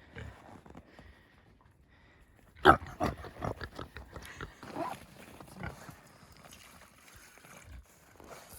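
A farm animal's noises, set off by a sharp, loud knock about two and a half seconds in and followed by a run of irregular knocks and short sounds.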